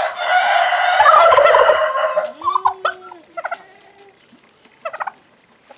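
Turkey tom gobbling loudly for about two seconds, followed by a few shorter calls.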